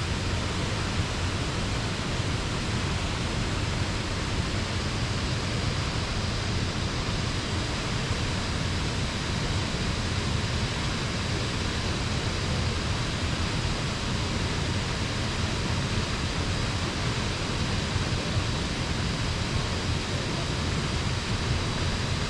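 Laxapana Falls, a waterfall about 126 m high, heard from its foot as a steady, unbroken rush of falling water, heavy in the low end.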